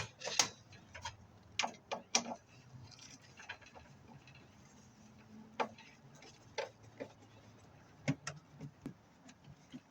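Irregular light clicks and knocks of hand tools and sheet-metal furnace panels being handled, about a dozen separate taps spread unevenly.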